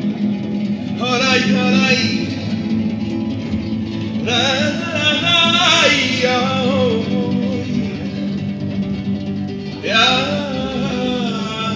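A man singing with an acoustic guitar accompanying him. The guitar plays steadily underneath, and the voice comes in three phrases, about a second in, at about four seconds and near the end.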